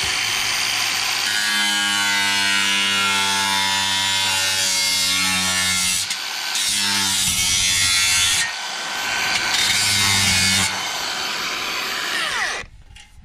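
Angle grinder with a well-worn cut-off wheel cutting through metal siding panel: a loud, steady motor whine under a dense grinding hiss. It eases off briefly about six seconds in and again around eight and a half seconds, and stops shortly before the end.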